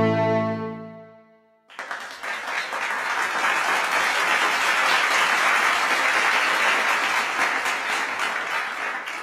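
The quintet's final held chord on strings dies away, and about a second and a half later an audience breaks into steady applause at the end of the piece.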